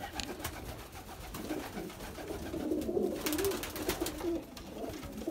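Domestic pigeons cooing, a run of low warbling coos growing stronger after about two seconds, with a few quick wingbeats as one bird flutters down.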